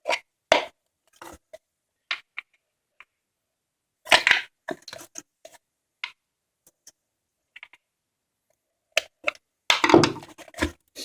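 Plastic housing of a heater blower motor being pried open, its retaining clips pressed in and snapping free: a scatter of sharp clicks and cracks, bunched around four seconds in and again near the end.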